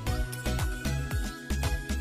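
Electronic background music with a steady beat of low, pitch-dropping kick thumps under a held high synth note that steps up in pitch.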